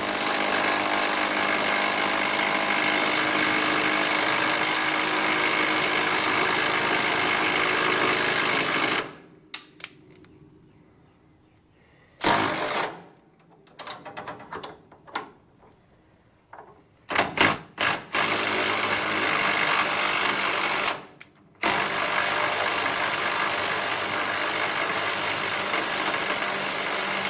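Battery impact wrench hammering on a seized motor-mount nut: one run of about nine seconds, a few short bursts, then runs of about three and six seconds. The nut is stuck hard enough to get hot under the hammering.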